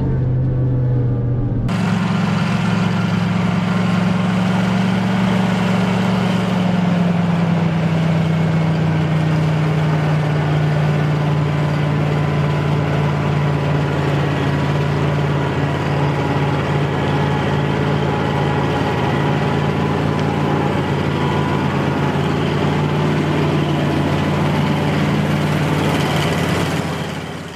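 International Harvester 915 combine's 345 cubic-inch International V8 running steadily as the combine drives along, with a steady deep engine hum. The sound fades out near the end.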